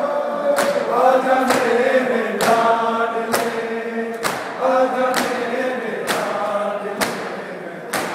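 Crowd of men chanting a noha lament in unison, with their hands striking their chests together in matam about once a second as sharp slaps.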